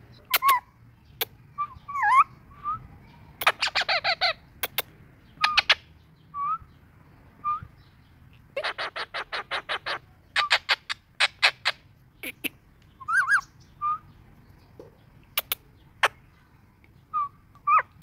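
Rose-ringed parakeet calling: short whistled chirps and several quick runs of harsh repeated notes, about seven a second, with sharp clicks in between.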